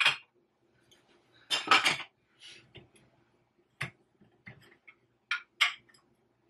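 China saucers and teacups clinking against each other as they are handled and set down: a loud clatter about a second and a half in, then a few single clinks.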